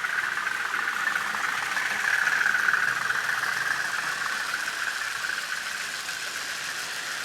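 N gauge model of LMS diesel 10001 running with its DCC sound decoder playing a steady diesel engine sound through the loco's tiny speaker, thin and nasal in tone.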